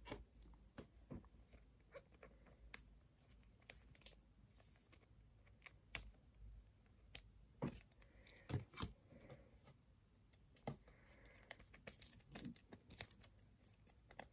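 Very faint, scattered clicks and soft rustles of a stack of trading cards being handled and flipped through by hand.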